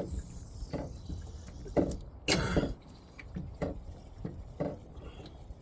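Small water slaps knocking against a kayak's hull in short irregular knocks, about one a second, over a low rumble. There is one louder, longer burst a little past two seconds in.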